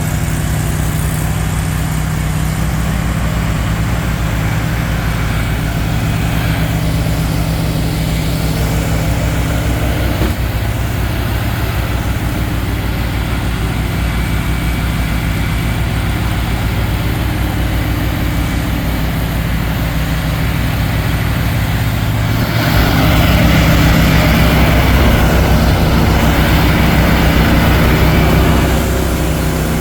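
Mahindra eMax 20 compact diesel tractor running steadily with its Bercomac snowblower. About 22 seconds in the sound gets louder, with a rushing noise added for about six seconds before it settles back.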